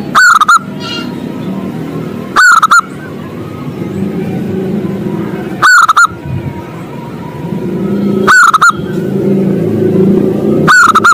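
Zebra dove (perkutut) cooing: five short, loud phrases of a few quick notes each, about two and a half seconds apart, over a steady low rumble.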